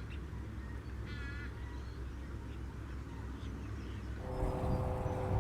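A waterbird calls once, briefly, about a second in: a short, nasal honk like a black swan or duck. A little after four seconds a steady low hum comes in, with rising background noise.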